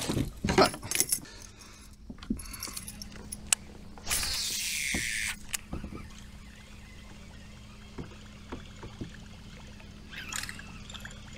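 Fishing tackle being handled on a plastic kayak: scattered clinks and knocks, with a hissing rush lasting just over a second about four seconds in.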